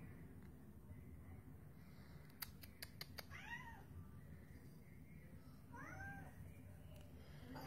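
Flamepoint Siamese cat meowing quietly twice, about two and a half seconds apart. Each meow is short, rising and then falling in pitch. A few faint clicks come just before the first meow.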